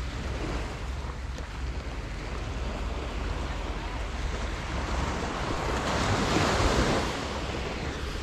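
Small waves washing onto a sandy beach, with wind buffeting the microphone. One wave breaks and swells louder about six seconds in, then eases off.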